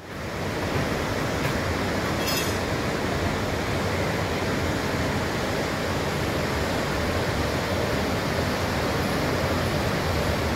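Sea surf breaking on a beach: a steady, continuous wash of waves.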